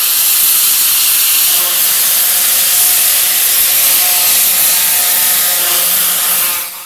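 Ultra-high-pressure water jet from a FALCH jetting unit (2500–3000 bar) blasting paint and rust off a steel shipping container: a loud, steady, high hiss that dies away right at the end.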